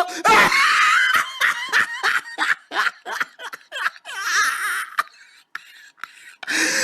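A person laughing in quick repeated bursts, with wavering high voice sounds.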